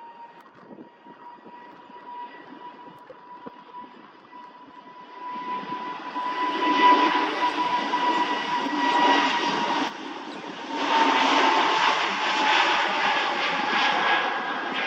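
Jet airliner's turbofan engines on the runway: a steady whine at first, then much louder engine noise from about five seconds in, with a short dip about ten seconds in.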